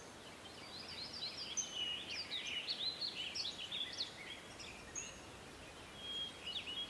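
Birds chirping and twittering, a quick run of short high chirps through the first few seconds and a few more near the end, over faint background hiss.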